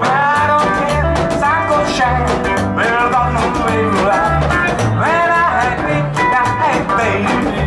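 Live rockabilly band playing: hollow-body electric guitar, acoustic guitar and upright double bass, the bass keeping an even pulse of about two notes a second under a lead line with bending notes. The music comes in louder at the start.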